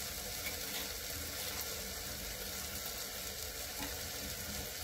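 Onion-tomato masala sizzling gently in oil in a pressure cooker, a steady soft hiss while it is fried until the oil separates.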